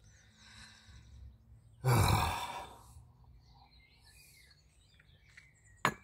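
A man's heavy, breathy sigh about two seconds in, an exasperated exhale over a seized brake caliper. A single sharp click near the end.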